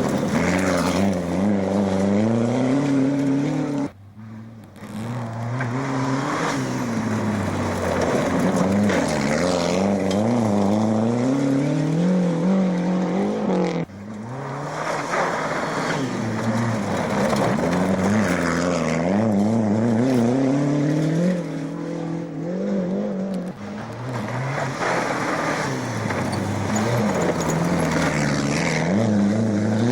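Rally car engines at full throttle, revving up and dropping back again and again through gear changes. The sound breaks off suddenly twice, about four and fourteen seconds in, and picks up again.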